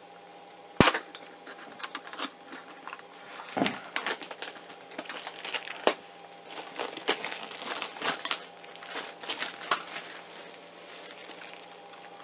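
Thin plastic wrapping bag crinkling and crackling in irregular bursts as it is handled and pulled off a filament spool, with a sharp knock about a second in.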